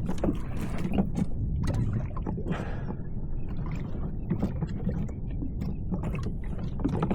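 Sea water slapping and sloshing against a kayak's hull, with scattered short knocks and splashes over a steady low wind rumble on the microphone.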